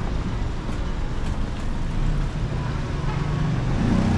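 Busy city street ambience: steady road traffic noise from passing vehicles, with a low engine hum building near the end.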